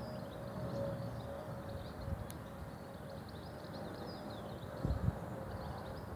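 Small birds chirping in many short, high calls over a low background rumble and a faint steady hum, with a soft bump about five seconds in.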